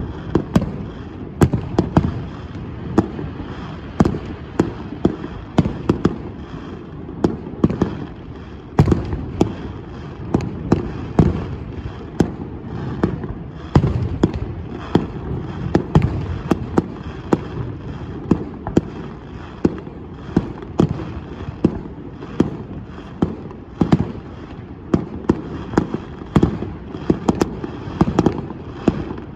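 Fireworks display: a rapid, irregular series of sharp bangs and booms, several a second, over a continuous low rumble.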